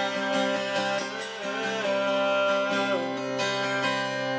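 Acoustic guitar strummed in a steady rhythm, an instrumental passage of a folk song between sung lines.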